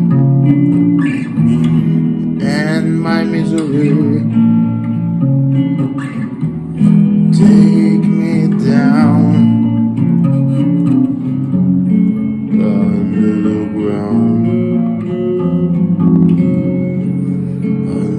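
Chords played on a gold-top, Les Paul-style electric guitar, with a man singing a melody over it in phrases.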